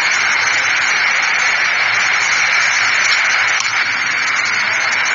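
Steady, loud hiss-like noise with no distinct events.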